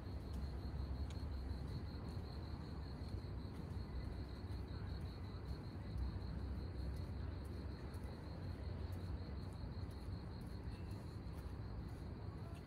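An insect trilling in a fast, even pulse at a high pitch, over a steady low rumble.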